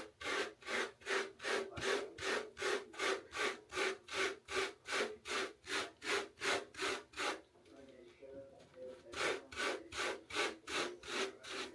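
Hairbrush strokes through short hair, brisk and rhythmic at about three strokes a second, as 360 waves are brushed in. The strokes pause briefly past the middle, then carry on.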